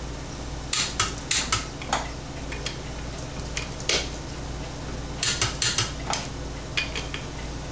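Pittsburgh click-type torque wrench and 5/8 inch socket being worked on wheel lug bolts: sharp metallic clicks, some single and some in quick clusters. The wrench's click signals that a bolt has reached its set torque of 50 foot-pounds.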